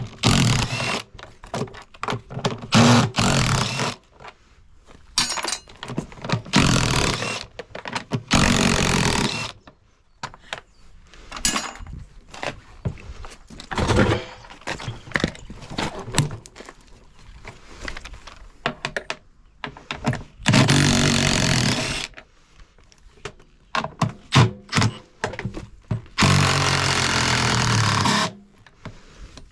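Handheld power driver spinning out bolts from a washing machine's steel cabinet in about five bursts of one to three seconds each, with knocks and clicks of metal parts in between.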